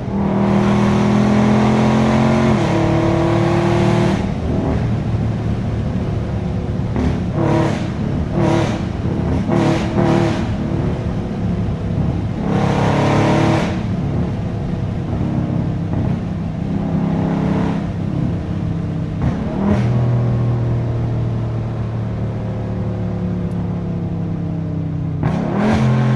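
Tuned, catless 6.4-litre 392 HEMI V8 of a Dodge Scat Pack under hard acceleration: a sustained loud pull in the first few seconds, then repeated short bursts of throttle with steadier cruising running between them.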